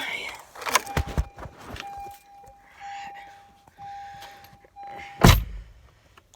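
Truck door-open warning chime sounding as a steady tone in broken stretches, with thumps as someone climbs in; about five seconds in the door slams shut with a loud heavy thud and the chime stops.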